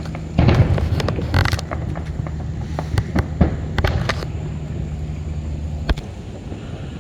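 Fireworks going off overhead: a loud burst about half a second in, then crackling and scattered sharp pops and bangs. A steady low engine hum runs underneath.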